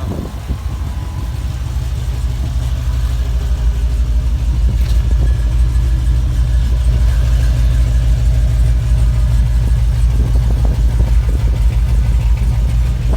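Whipple-supercharged 5.3-litre V8 of a 2016 Chevrolet Silverado idling through long-tube headers and a 3-inch exhaust with Flowmaster 50 mufflers, a steady deep rumble that grows a little louder over the first few seconds.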